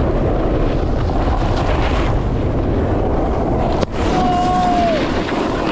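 Steady wind rush over a moving chase camera's microphone, mixed with snowboards sliding on packed snow. It drops out for an instant just before four seconds, where the clip cuts. A short held tone follows about a second later.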